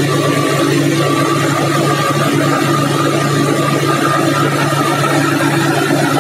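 Aircraft engine noise in flight: a steady low drone with a thin whine held above it.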